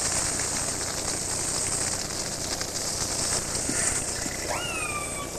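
Steady hiss of underwater ambient noise, and about four and a half seconds in a killer whale call that rises sharply, then holds as a long, slowly falling tone.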